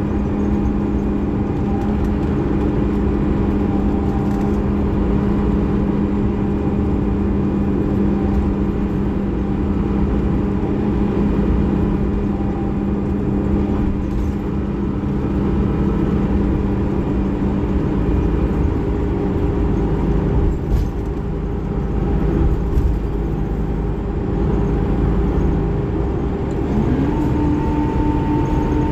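Scania K360IB bus's DC13 inline-six diesel engine running, a steady humming drone. About 27 s in, the engine's hum rises in pitch and holds.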